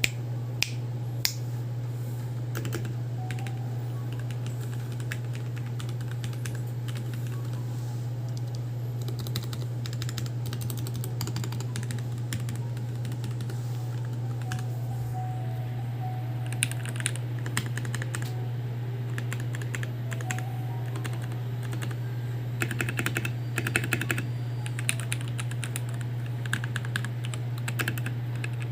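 Typing on a DZ65RGB V2 65% mechanical keyboard with lubed and filmed Gateron Milky Black linear switches, in a Tada68 plastic case with an aluminium plate: scattered key presses at first, then spells of quick typing in the second half. A steady low hum runs underneath.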